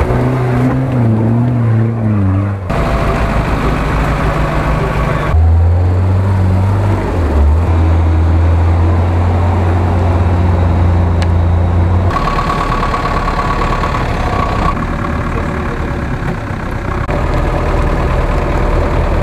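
Off-road 4x4 engines running and revving in mud, the sound changing abruptly several times as one vehicle gives way to the next. The middle stretch is one steady low engine note.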